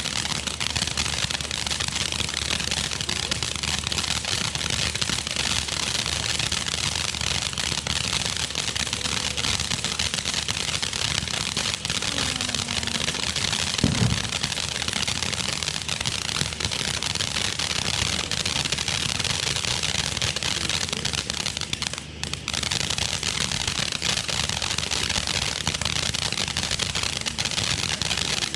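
Consumer fireworks crackling densely and without a break, with one louder bang about halfway through.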